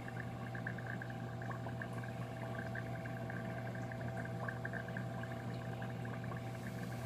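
Aquarium air pump humming steadily, with a fast, fine crackle of bubbling from the airline in the dip container.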